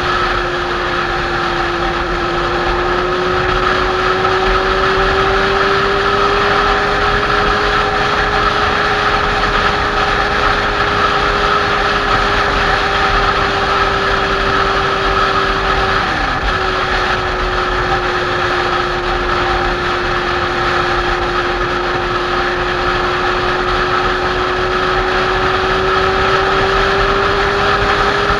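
Kawasaki Z800 motorcycle's inline-four engine running steadily at cruising speed, under a constant rush of wind noise. The engine note drifts slowly in pitch and breaks off briefly, then resumes, about halfway through.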